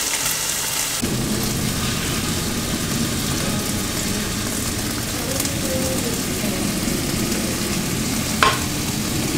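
Greens sizzling in a hot frying pan. From about a second in, the low rumble of an airplane flying overhead sits under the sizzle. There is a single short knock near the end.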